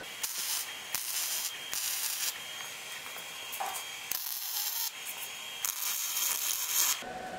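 MIG welding arc laying short tack welds: about five separate bursts of crackling hiss, each under a second or so. The arc sputters over paint left on the steel.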